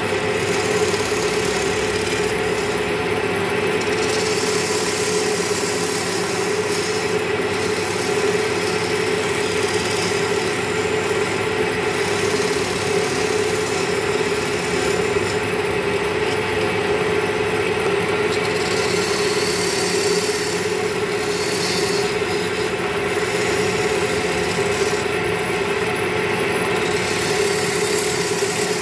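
Wood lathe motor running with a steady hum while a hand-held turning chisel cuts into the spinning wooden table leg. The scraping of the cut comes and goes as the tool is pressed in and eased off.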